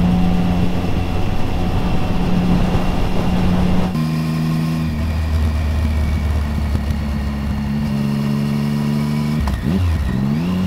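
A Triumph Speed Triple's three-cylinder engine running at steady revs under way. The tone changes abruptly about four seconds in, and near the end the revs dip briefly and then climb again.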